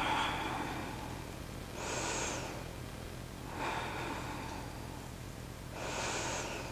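A woman breathing slowly and audibly while holding a side plank, one breath about every two seconds.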